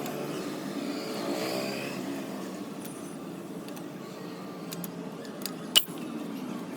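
Vehicle engine noise from road traffic running steadily, with one sharp metallic click about six seconds in.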